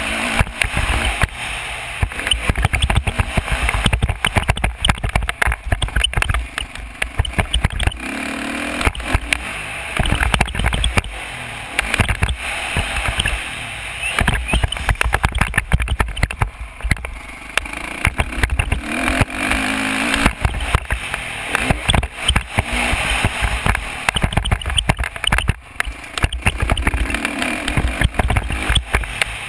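Dirt bike engine running at changing speeds while riding a motocross track, heard through heavy wind buffeting on a helmet-camera microphone that comes and goes unevenly.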